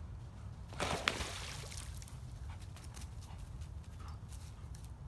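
An otter diving under the surface of a pond, with one short splash about a second in.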